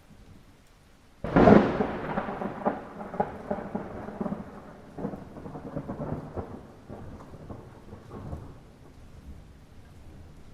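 Thunder during light rain: a sudden clap about a second in, followed by a run of crackles and rumbles that fade away over several seconds, with the rain's faint steady hiss underneath.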